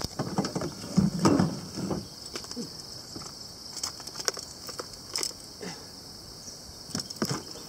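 A hooked giant snakehead thrashing at the surface beside a boat: irregular splashes and knocks, heaviest in the first two seconds and then scattered. Under them, a steady high-pitched chorus of jungle insects.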